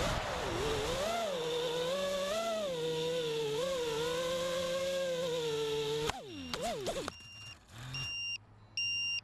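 FPV racing quad's brushless motors (DYS SE2205 2550KV) whining at low throttle, the pitch rising and falling with the stick as the quad comes down. About six seconds in, the motors spin down and stop as it lands. Near the end an electronic beeper starts sounding short high beeps, about one every three quarters of a second.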